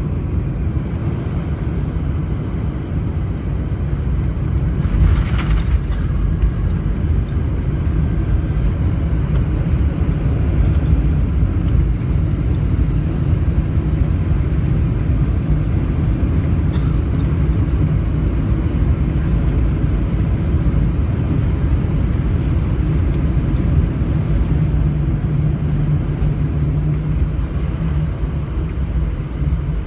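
Cabin noise of a Boeing 747-400 on its landing roll: a steady low rumble of engines and runway. There is a brief hiss about five seconds in, and the low drone grows stronger near the end.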